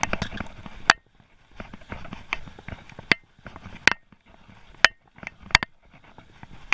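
Mountain bike rattling over a wooden boardwalk: irregular sharp knocks and clinks as it crosses the planks, the loudest about a second in and around five and a half seconds in.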